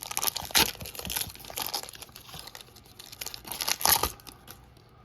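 Foil Pokémon booster pack wrapper being torn open and crinkled in the hands, with bursts of crackling about half a second in and again around four seconds, then quieter rustling.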